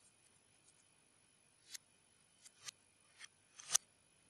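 Plastic Lego Technic parts clicking as they are pressed and snapped together by hand: a handful of sharp clicks in the second half, the loudest near the end.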